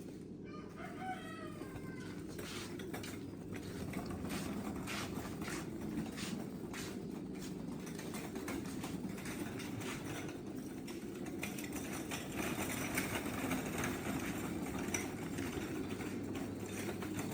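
Poultry shed sounds: a rooster crows once near the start, then birds make a scatter of clicks and wing flaps over a steady low background noise.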